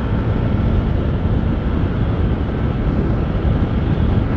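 Steady rumble of wind buffeting the microphone, mixed with the engine of a 150 cc motorcycle cruising at road speed.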